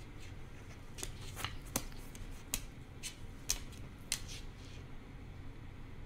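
Irregular light clicks and taps close to the microphone, about eight in six seconds, as a male eclectus parrot moves and pecks about on its perch beside it.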